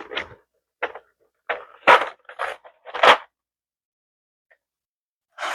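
Plastic keycaps and their plastic tray being handled, giving about seven short clicks and clatters over the first few seconds, then quiet.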